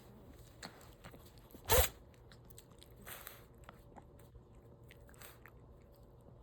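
A pet sneezing once, short and sharp, about two seconds in, with fainter snorts and sniffs before and after. It is part of a sneezing fit that the owner thinks comes from something stuck in the nose.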